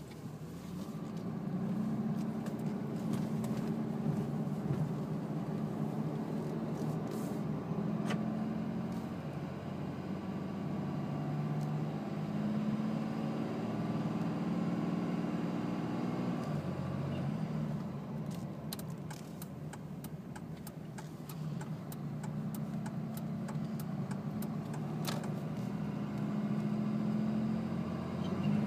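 Cummins 5.9-litre inline-six turbo-diesel droning steadily from inside the cab at about 2,000 rpm, the 48RE automatic transmission holding first gear when it should have shifted into second. The engine note eases off for a few seconds past the middle, then builds again, with a patter of small clicks and rattles in the later part.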